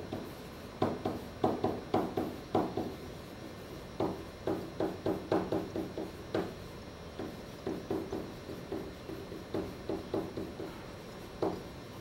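A pen writing on a whiteboard: quick runs of light taps and short strokes against the board surface, coming in bursts as each word is written.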